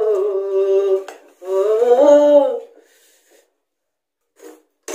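A voice humming two long drawn-out notes without words, the second rising and then falling, closing off a sung Nepali folk tune; a soft tap comes near the end.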